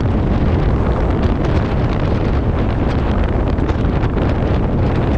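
Strong storm wind buffeting the microphone: a loud, steady low rumble of wind noise.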